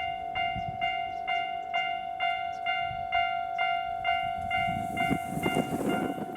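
Railway level-crossing warning alarm ringing steadily at a little over two strikes a second, each strike a clear bell-like tone; the crossing's two sounders are known for one side ringing slightly higher in pitch. About two-thirds of the way through, a burst of rushing wind noise rises over it.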